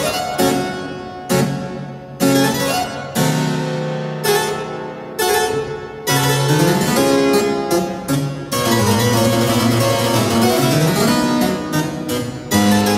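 Harpsichord music: separate plucked chords that ring and die away, then from about six seconds in a quicker, busier passage with running scales going up and down.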